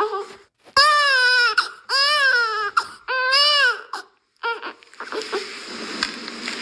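A baby crying: three loud wails about a second long each, rising and then falling in pitch, then a short broken cry. About five seconds in it gives way to a hissy, crackling stretch.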